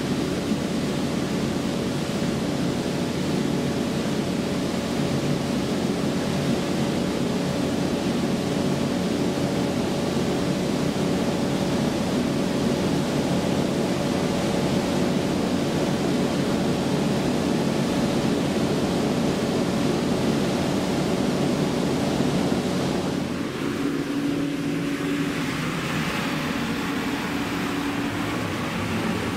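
Ship's machinery running steadily: a loud, even drone with a steady hum in it. About 23 seconds in, the sound shifts: the deep part weakens and a higher hiss comes up.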